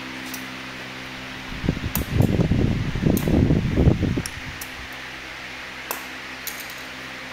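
A steady machine hum, like a fan, runs underneath. For about two and a half seconds in the middle comes a loud, irregular low rumble and rustle, the loudest thing here, and a few short sharp clicks sound around it, as zip ties on the e-bike's foam packaging are snipped with side cutters.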